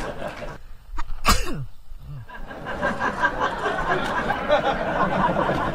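Horse snorting: a single sharp, sneeze-like blow through the nostrils about a second in, with a smaller one just after, over a steady background noise.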